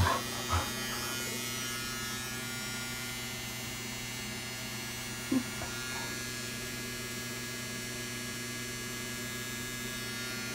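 A small handheld battery gadget running with a steady electric hum made of several constant tones. A couple of short sounds come in the first second, and another brief one about five seconds in.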